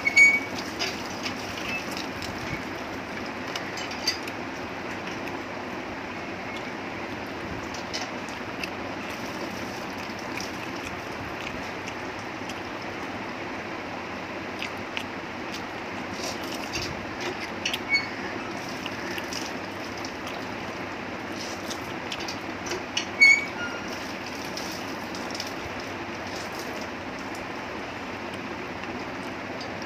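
Chewing and wet mouth smacks of someone eating a chicken leg piece with her hands, with a few short sharp clicks near the start and again twice later on, over a steady background hiss.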